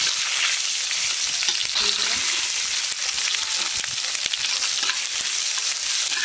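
Panch phoron and dried red chillies sizzling steadily in hot oil in a kadai, with many small crackles.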